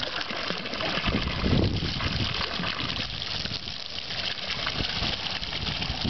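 Water gushing steadily from a metal fountain spout and splashing into a stone basin.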